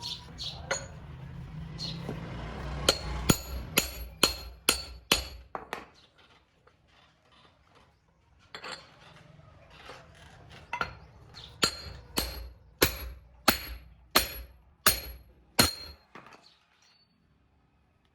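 A hammer striking metal in two runs of steady blows, a little under two a second, each blow ringing briefly. A pause of a few seconds separates the two runs.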